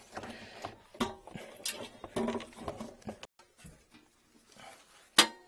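Scattered knocks and clinks of hands and tools working on a metal floor-heating distribution manifold and its fittings, with a sharp knock near the end.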